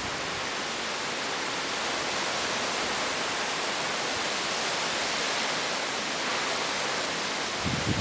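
Heavy typhoon rain and wind, a steady even hiss of downpour. Near the end a short low rumble of a gust hits the microphone.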